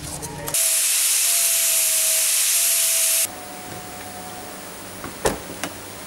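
A loud, steady hiss that starts about half a second in and cuts off suddenly about three seconds in. Then a quieter background with a faint steady hum and two sharp clicks near the end.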